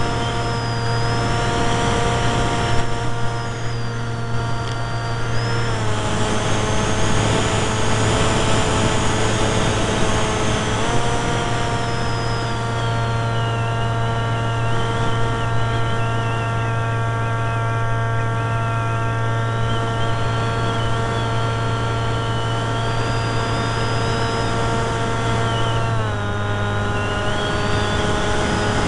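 Electric motor and propeller of a small delta-wing RC plane, heard through the onboard camera: a steady whine over a rush of air. The pitch steps down about six seconds in, back up around eleven seconds, and down again near the end as the throttle is changed.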